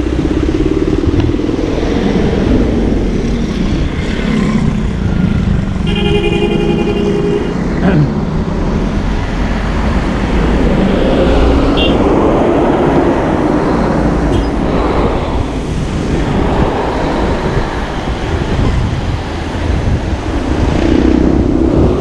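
Close road traffic on a wet road: a truck, buses, motorcycles and motorcycle sidecars going by with engine noise and tyre hiss. A vehicle horn sounds once for about a second and a half, around six seconds in.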